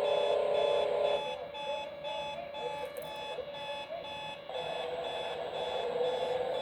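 Clock radio alarm tuned to AM, playing a strange electronic signal: a steady buzzing tone under higher beeps pulsing about twice a second. About a second in it turns quieter and the tone wavers, then it comes back up past the middle.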